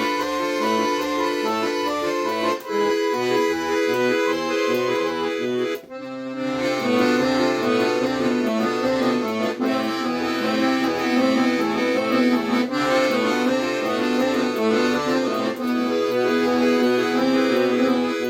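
Accordion being played: a melody over a pulsing bass-and-chord accompaniment, with a brief break about six seconds in.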